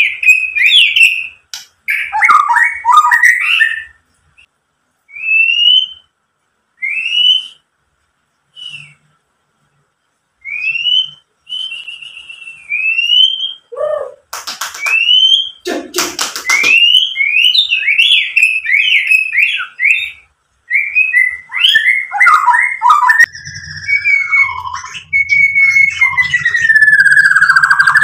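White-rumped shama (murai batu) singing: short upslurred whistles separated by pauses, then a burst of harsh, rasping notes about halfway through. A fast run of varied whistled phrases follows, ending in a long falling whistle.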